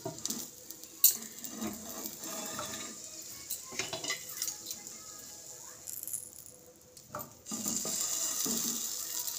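Steel spatula clicking and scraping against a nonstick frying pan as French toast slices are lifted and turned, with a sharp clack about a second in. Butter sizzles under the bread, louder near the end once the slices are flipped.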